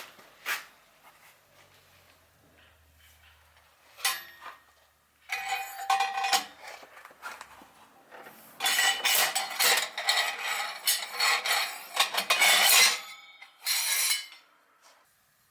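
Metal scraping and clinking of a metal exhaust insert being worked in and out of a car's muffler tip. It comes in several bursts, the longest from about nine to thirteen seconds in.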